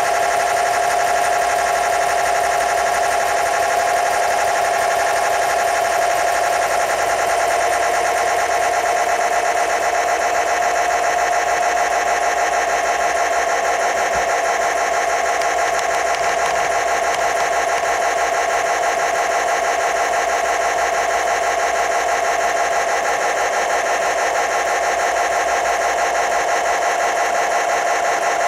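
Electric motor and gearbox of a G-scale USA Trains Docksider model locomotive running with its wheels turning on roller stands: a steady whine with a rapid mechanical buzz.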